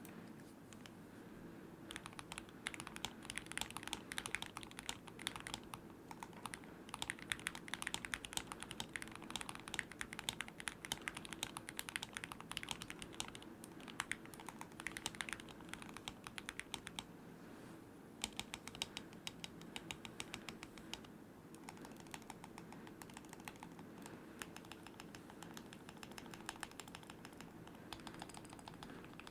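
Fast typing on a Gamakay K87 mechanical keyboard with four layers of masking tape under it. Dense runs of keystroke clicks start about two seconds in, with short pauses, over a faint steady hum.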